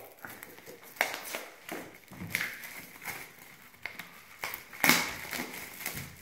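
Plastic shrink-wrap crinkling and crackling as it is peeled off a stack of cardboard game-token punchboards, in irregular crackles, loudest about a second in and again near the end.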